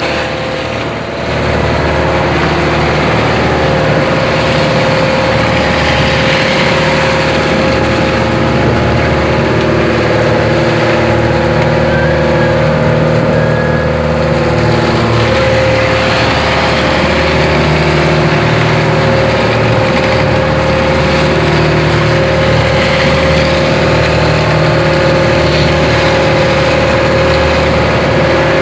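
Fishing boat's engine running steadily, its note shifting slightly about halfway through, over a hiss of wind and water.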